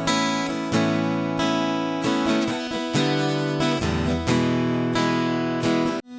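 Ovation Celebrity Elite CE44 steel-string acoustic guitar played in ringing chords, with a new chord struck about every two-thirds of a second. The sound cuts out briefly just before the end.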